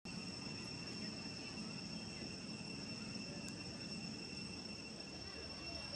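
Steady, high-pitched insect chorus, holding one unbroken tone, over faint outdoor background noise.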